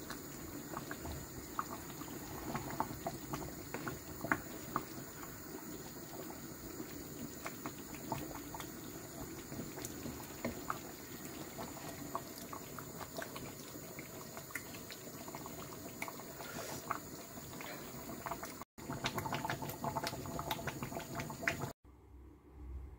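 Large pot of Edo black soup, with meat and fish in it, boiling hard: a steady bubbling full of small irregular pops. The sound cuts out briefly twice near the end and is much quieter for the last second.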